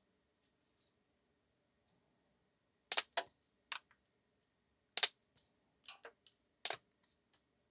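A run of sharp plastic clicks and snaps from a 3D-printed spring-loaded BB launcher being worked. There are about eight, several in quick pairs, starting about three seconds in.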